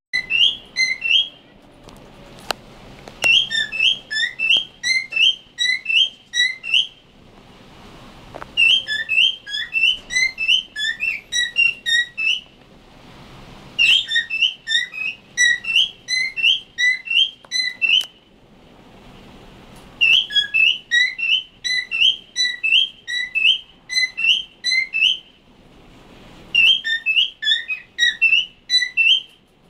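Pet cockatiel whistling in six bouts of short, high chirped notes, about three to four a second, with pauses of a couple of seconds between bouts. The owners hear this as the bird saying the Hebrew word 'tuki' (parrot).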